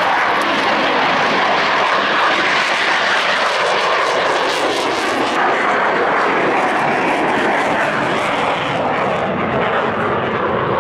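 Loud, steady jet noise from fighters at take-off power. First a Saab JAS 39 Gripen climbing away after lift-off, its sound dropping in pitch a few seconds in as it passes. Then a pair of fighter jets on their take-off roll.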